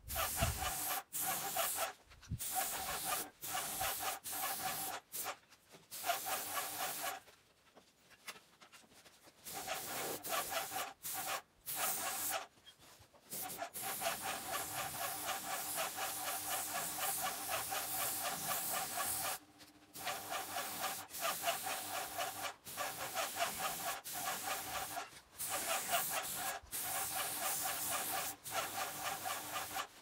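Graco airless paint sprayer hissing in repeated passes, with a steady tone in the hiss, cutting off sharply each time the trigger is released. Most bursts last a second or two, with one long pass of about six seconds in the middle.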